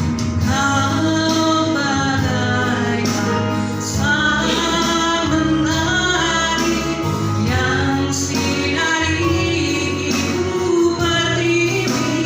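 A song: singing voices with held, gliding notes over steady instrumental accompaniment.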